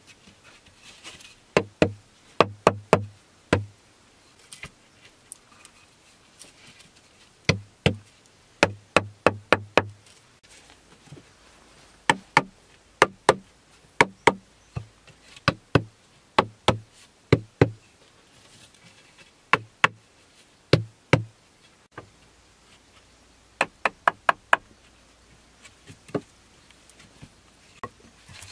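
Wooden poles knocking together as they are laid and tapped into place on a pole floor, in quick runs of several sharp knocks with pauses between.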